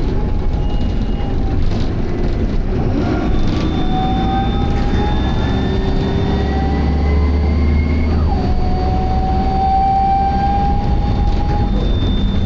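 Optare Solo bus's Allison automatic gearbox whining as the bus pulls away. The whine rises in pitch, drops sharply at an upshift about eight seconds in, then rises again over the drone of the diesel engine. A thin, steady high-pitched tone comes and goes.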